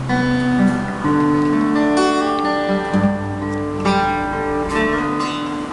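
Acoustic guitar played solo: picked and strummed chords, the chord changing about once a second, with a few sharper strums in the second half.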